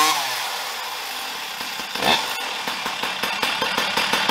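Ported Stihl MS460 chainsaw fitted with an expansion-chamber pipe, its revs falling away after a throttle blip, then running steadily. A short throttle blip comes about two seconds in, and near the end the running turns into a rapid, even pulsing.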